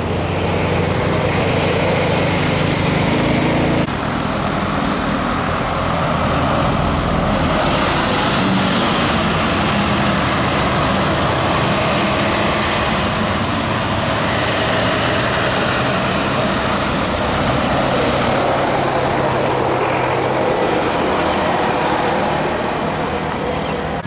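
Road traffic passing close by: a tour bus's diesel engine running with car and motorcycle engines and tyre noise. The sound changes abruptly about four seconds in.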